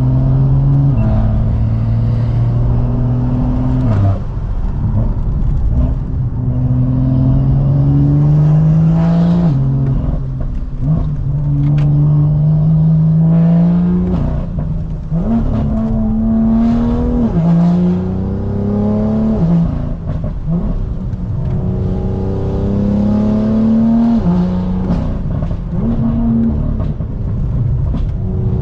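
Decatted, remapped BMW M2's turbocharged straight-six being driven hard: the engine note climbs repeatedly and drops sharply at each upshift, several times over, with sharp exhaust cracks around some of the lift-offs.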